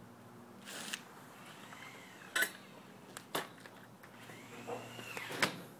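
A few separate sharp knocks and scrapes, about five over several seconds, as the rider gets off the mini dirt bike; no engine is running.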